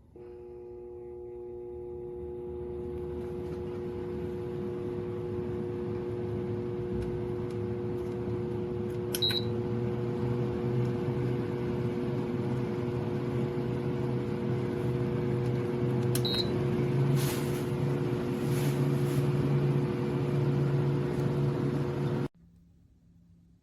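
Shinic twin-blade window fan starting up and running, a steady hum with the rush of moving air, growing louder over the first few seconds. Two short high beeps come from its controls, about nine and sixteen seconds in, and the running sound is a little stronger after the second. The sound stops abruptly near the end.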